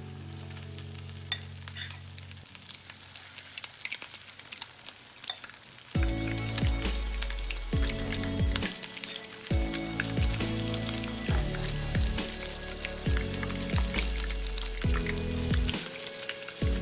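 Fritter batter frying in shallow olive oil in a nonstick pan, the oil sizzling and crackling steadily as a spoon pushes and shapes the fritters. About six seconds in, background music with a strong bass line comes in over the sizzle and is louder than it.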